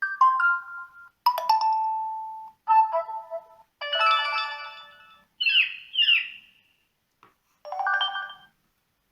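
Xiaomi Redmi 7A phone speaker playing a string of short preset tones one after another, about six separate electronic chimes, each with its own melody, with brief silences between them; two quick swooping chirps come just past the middle.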